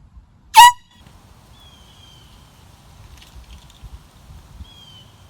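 A single short blast of a handheld air horn about half a second in: loud, one pitched tone, lasting about a quarter of a second.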